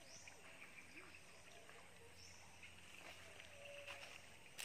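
Near silence: faint forest ambience, a steady high insect hum with a few faint bird chirps.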